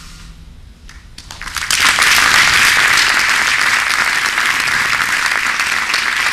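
Audience applauding: a few scattered claps about a second in, swelling quickly into full, steady applause.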